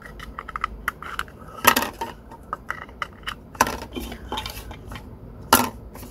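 Hard plastic clicks and clacks as latch buttons are pushed into a cordless drill battery's plastic case and the case is handled, with three louder knocks spread through it.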